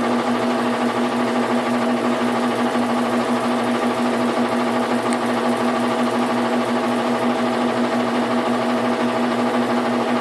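Washing machine making an abnormal noise: a loud, steady hum with one strong pitch and a fast, even rattling flutter, unchanged throughout.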